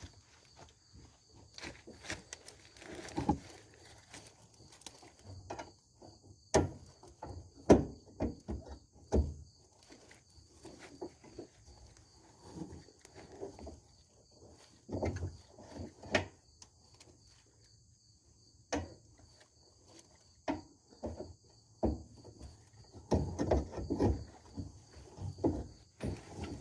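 Metal hand tools and suspension parts clink and knock at irregular intervals while a rear panhard bar is being bolted in. A steady, high chirring of insects carries on underneath.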